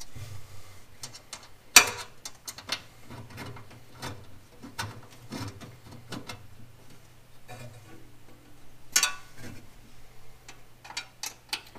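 Irregular metallic clicks and ticks of a hand tool working Allen-head button bolts into a sheet-metal bracket, with two louder clicks about two seconds in and again near nine seconds.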